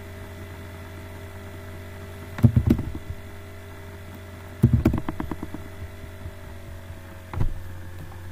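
Computer keyboard keys struck in two quick clusters, about two and a half and five seconds in, with one more single knock near the end, over a steady electrical hum.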